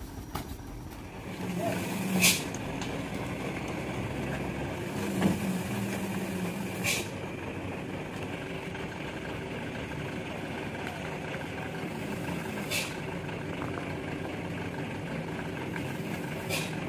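Heavy truck's diesel engine running as it pulls away, with four short, sharp air hisses spread through, typical of air brakes releasing.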